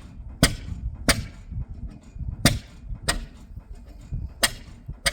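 6 HP Fairbanks-Morse hit-and-miss engine running on a straight exhaust pipe, each firing a sharp pop, in pairs about two seconds apart, over a low rumble.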